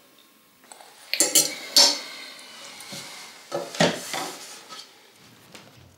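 Knives and forks clinking against plates while eating: a cluster of clinks about a second in and a shorter one around four seconds in.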